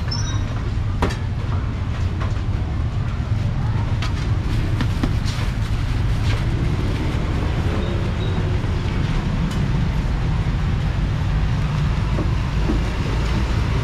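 Steady low rumble of street noise with a few light clicks scattered through it.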